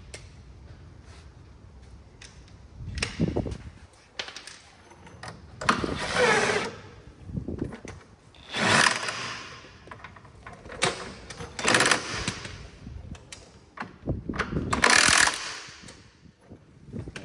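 Impact wrench hammering in several short bursts, each under a second, tightening a 17 mm castle nut at the bottom of the UTV's front control arm.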